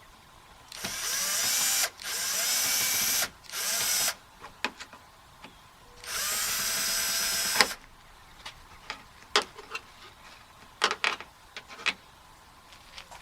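Power drill/driver running in four short spells, the motor's pitch rising as each one starts, as it backs screws out. A few light clicks and knocks follow.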